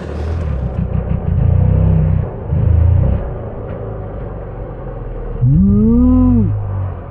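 KTM 250 TPI two-stroke enduro engine running at low revs, with two short throttle blips in the first three seconds. A little over five seconds in comes one clean rev whose pitch rises and falls back within about a second.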